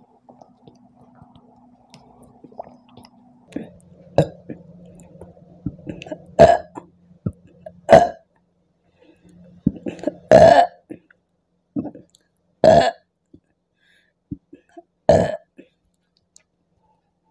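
A woman burping repeatedly, gas brought up by a carbonated apple drink: a run of short burps starting about four seconds in, five of them loud and about two seconds apart, with smaller ones between.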